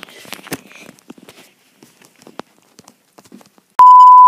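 Scattered soft footsteps and knocks as a phone is carried quickly along a hallway. Near the end a loud, steady single-pitch beep cuts in: the test tone of a TV colour-bars card, used to mark a blooper.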